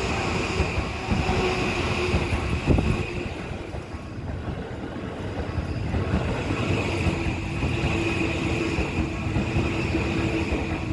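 Toei Asakusa Line 5500 series electric train running past over the rails at a level crossing, with a steady rumble. A level-crossing warning bell rings over it, dipping about three seconds in and coming back strongly about six seconds in.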